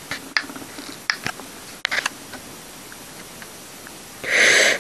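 Small sharp clicks and taps from handling a hot glue gun as a bead of glue is squeezed out onto plastic-wrapped paper, about half a dozen in the first two seconds. Near the end comes a short hiss-like rustle lasting about half a second.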